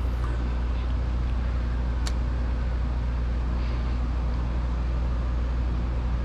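A steady low mechanical hum, with one sharp click about two seconds in.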